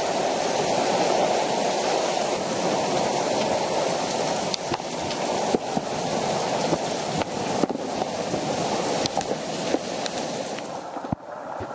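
Heavy downpour of rain pouring onto a tiled balcony: a dense, steady hiss with scattered sharp ticks of drops striking nearby surfaces. The sound falls away suddenly near the end.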